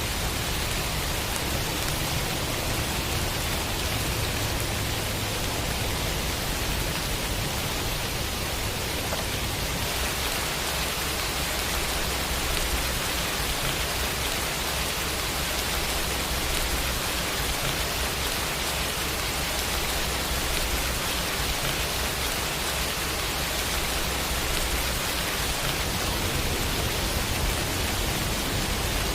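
Steady rain falling, an even hiss of raindrops with a low rumble, unchanging throughout; a looped rain sound effect.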